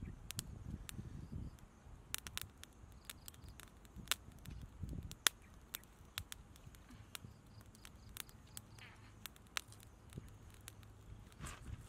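Large knife shaving and whittling a wooden stick: irregular sharp clicks with a few soft knocks.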